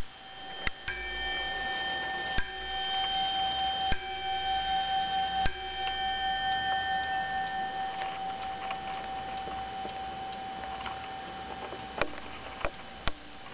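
Zaandam-style Dutch wall clock striking on its bell: four hammer strikes about one and a half seconds apart, each leaving a ringing tone, the last fading out over several seconds. A few light clicks follow near the end.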